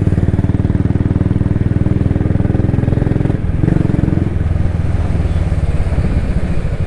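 Royal Enfield motorcycle engine running steadily under way, heard from the rider's seat, with an even pulsing exhaust note. The engine dips briefly about three and a half seconds in, then picks up again.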